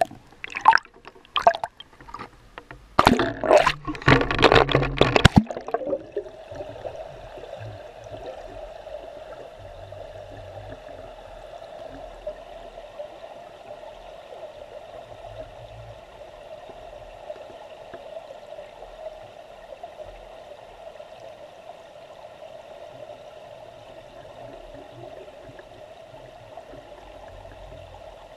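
Flowing stream water heard from an underwater microphone: loud splashing for the first five seconds or so, then a steady, muffled rush of current over the stones.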